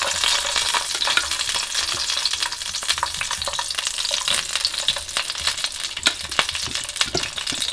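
Tomato wedges frying in hot extra virgin olive oil in a nonstick pan, a steady fine sizzle and crackle, with a few sharper clicks as metal tongs move the pieces.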